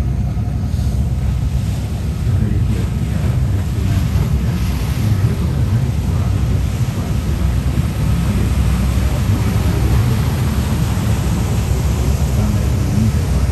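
Wind buffeting the microphone aboard a moving river tour boat, over a steady low rumble of the boat and the hiss of water along the hull.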